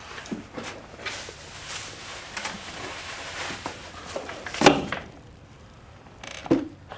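Rustling and handling noises as something is handled, with a sharp knock about two-thirds of the way through and a smaller one near the end.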